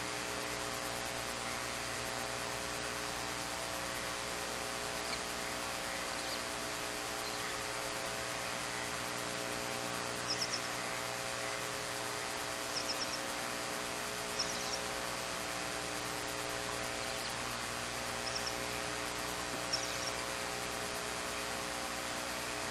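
Steady hiss and electrical hum from a nest-box camera's microphone, with a few faint, short, high chirps in the second half.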